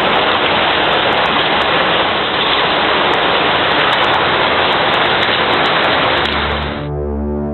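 Steady rushing of fast-flowing floodwater, a dense even noise that cuts off suddenly near the end as music with sustained tones comes in.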